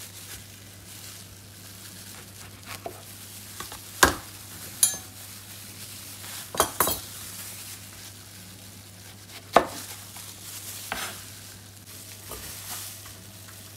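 Knife cutting the tops off jalapeños on a plastic cutting board: about half a dozen sharp knocks at irregular intervals as the blade hits the board, over a steady low hum.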